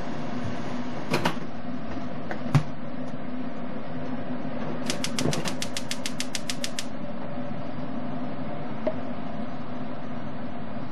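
Large aluminium pot of water with chicken breast boiling on a gas stove: a steady hiss with a low hum. A couple of sharp clicks come early, and about two seconds of rapid even ticking, roughly seven a second, comes in the middle.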